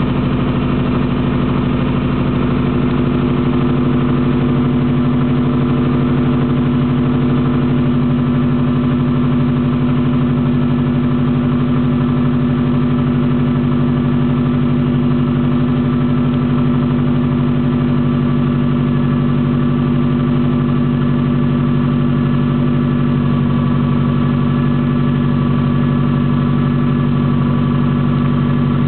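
Subaru Impreza WRX turbocharged flat-four engine idling steadily, heard close up with the bonnet open, shortly after being started from cold.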